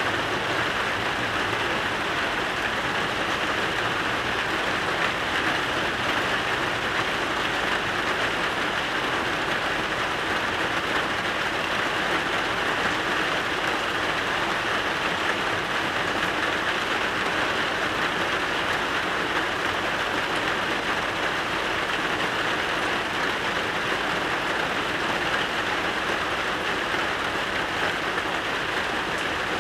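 Rain falling steadily: an even, unbroken hiss that neither swells nor fades.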